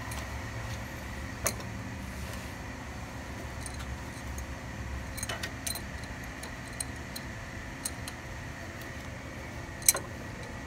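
Scattered light metallic clicks and clinks of a wrench on a brass Drainzit oil-drain valve as it is tightened into an engine's oil drain port, the sharpest click near the end, over a faint steady low hum.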